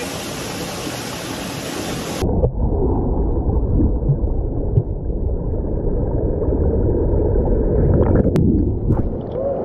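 Waterfall rushing and splashing, then about two seconds in the sound suddenly goes muffled and deep, a heavy churning rumble, as the action camera plunges into the fast water of the chute. A couple of sharp knocks come near the end.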